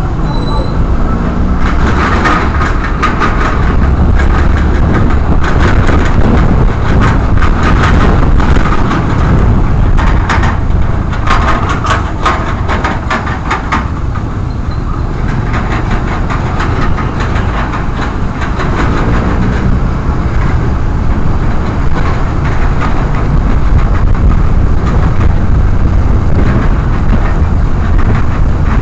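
Motorcycle riding in traffic, heard from a helmet-mounted camera: a steady low engine and road rumble with a run of crackling clicks in the first half.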